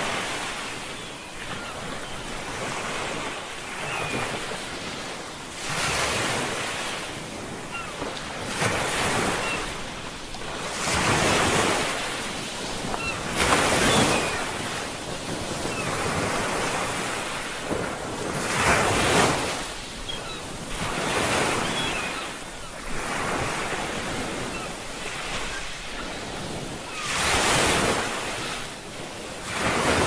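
Ocean waves breaking and washing on a shore, surging and falling away every few seconds, some surges louder than others.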